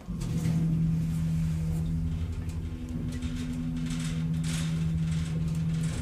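Elevator car starting off and riding up between floors, heard inside the car: a steady hum that comes in abruptly at the start, with a low rumble and scattered bursts of hiss and rattle.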